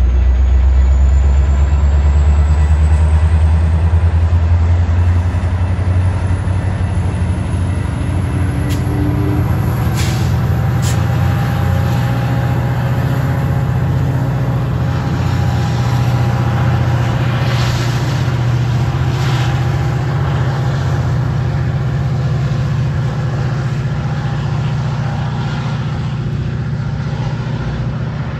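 Metra MP36PH-3S diesel locomotive pushing a commuter train away from the station, its prime mover working hard under load in a deep, steady drone that eases only a little as it draws off. A couple of sharp clicks come about ten seconds in.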